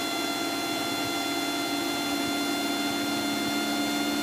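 Steady drone of a Cessna 172SP's four-cylinder Lycoming engine and propeller in level flight, heard from inside the cabin: an even hum with a few steady tones running through it.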